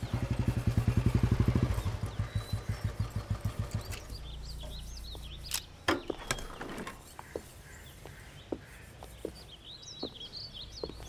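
Motorcycle engine running with a fast, even beat that slows and fades out over the first four seconds, leaving a low steady hum. A few sharp clinks come around the middle, and birds chirp near the end.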